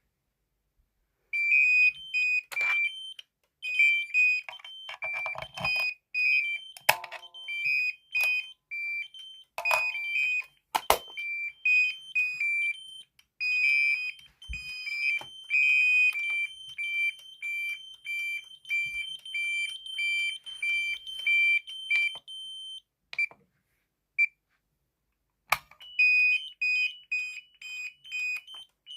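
Electronic alarm sounder on a security and fire alarm panel stand, beeping in fast high-pitched pulses that alternate between two pitches, with a few sharp clicks among them. The beeping breaks off for about two seconds near the end, then starts again.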